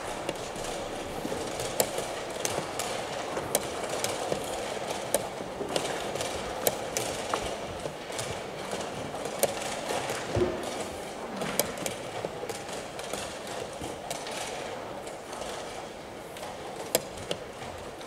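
Wooden chess pieces set down on the board and chess clock buttons pressed in fast blitz play: irregular sharp clicks and knocks, roughly one a second, over steady hall noise.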